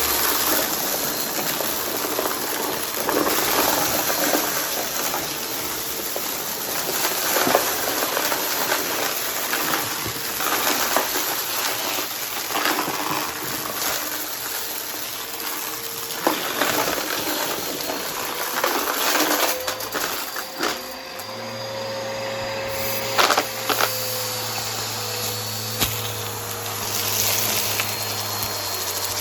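Vacuum cleaner with a spinning brushroll running steadily and sucking up crunchy debris, with crackles throughout. About two-thirds of the way through the motor sound shifts and a lower steady hum joins it.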